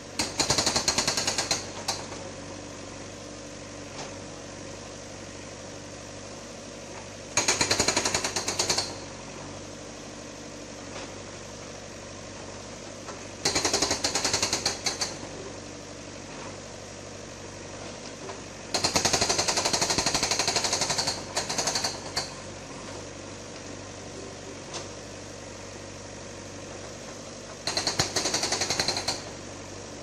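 Hydraulic breaker on a JCB backhoe loader hammering concrete paving in five bursts of rapid blows, each one to three seconds long. The loader's engine runs steadily between the bursts.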